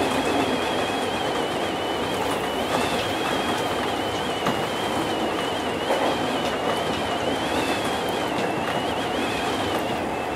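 JR 201 series electric commuter train running along the track, heard from inside the driver's cab: a steady rolling rush with a thin high whine that wavers slightly in pitch, and a few faint clicks.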